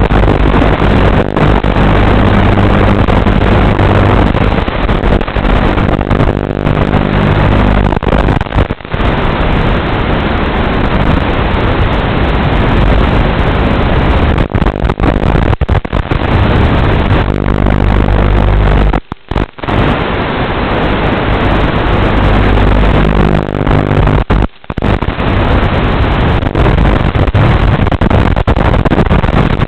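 Loud steady static hiss with a low electrical buzz, as recorded on the audio channel of an analog FPV video link from a racing quadcopter. It cuts out briefly twice in the latter part.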